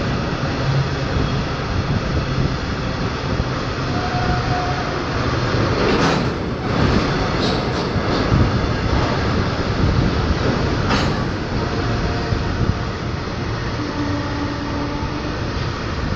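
Fully loaded goods train of covered box wagons rolling through the station: a steady, loud rumble and clatter of wagon wheels on the rails, with two sharp clanks about six and eleven seconds in and a couple of faint, brief wheel squeals.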